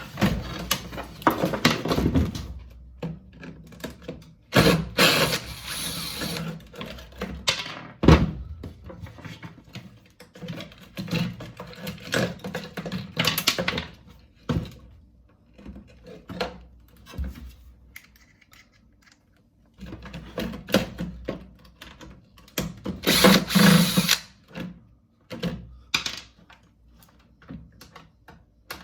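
Plastic and sheet-metal parts of a portable ice maker knocked and clattering as it is taken apart, with a couple of short runs of a cordless drill backing out screws.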